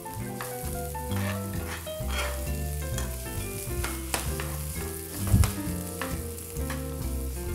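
Chopped celery, carrot, onion, garlic and parsley sizzling as they brown in olive oil in a frying pan, stirred with a spoon that knocks against the pan a few times. Background music plays underneath.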